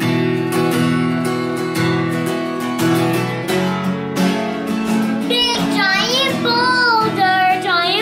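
Background music: acoustic guitar strumming steady chords, with a singing voice coming in about five seconds in.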